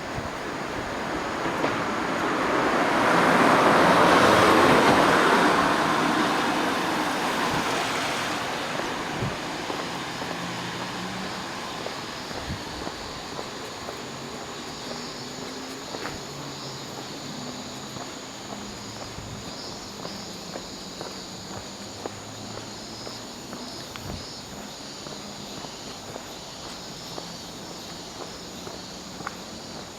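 A vehicle passing by: a broad rushing noise that swells to its loudest about four seconds in and fades away over the next several seconds. After that, insects chirp steadily.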